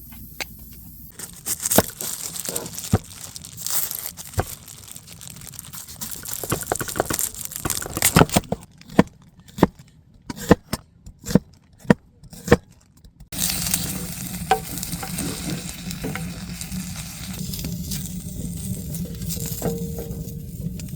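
Food frying in a pan, with sharp clicks and taps through the first part, then a steady sizzle from about two-thirds of the way in.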